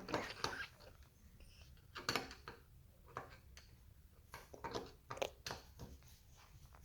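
Faint, scattered clicks and scrapes of a screwdriver tightening the screws that hold a smart lock's mounting plate to the door.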